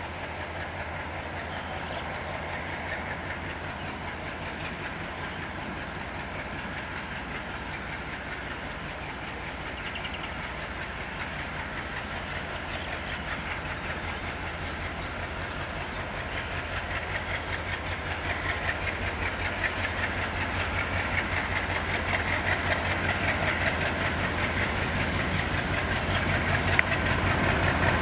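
Train running along the track, its wheels clicking in a fast, even rhythm over the rail joints, growing steadily louder.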